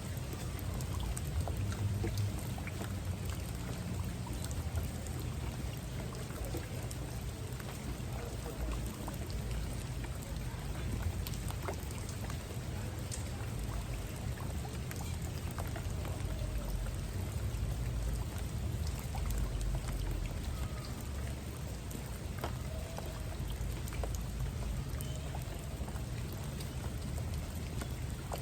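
Steady rain, with scattered individual drops ticking and a low rumble underneath.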